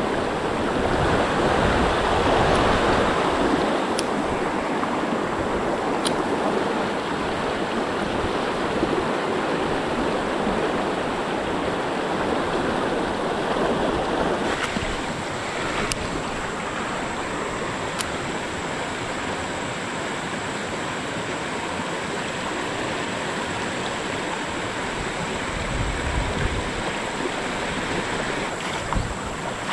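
Rushing water of a rocky stream's rapids, a steady rush that eases about halfway through. A few faint clicks sound over it.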